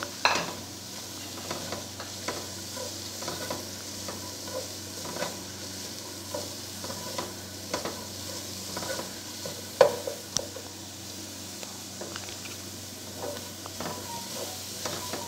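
Chopped carrot and cabbage with ginger and garlic sizzling in oil in a nonstick pan, stir-fried with a plastic slotted spatula that scrapes and taps against the pan about once or twice a second. The sharpest knock comes about ten seconds in.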